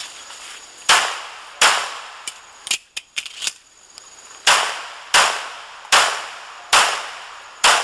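Semi-automatic pistol fired in aimed succession: two shots about a second in, a pause broken by a few light clicks, then five more shots spaced just under a second apart.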